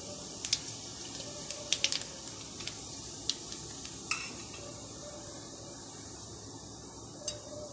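Fennel seeds frying in hot oil in a kadai: a steady sizzle with a few sharp clicks scattered through it, most of them in the first two seconds.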